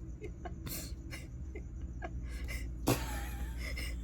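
Steady low hum with scattered soft clicks and rustles; one sharper click comes about three seconds in.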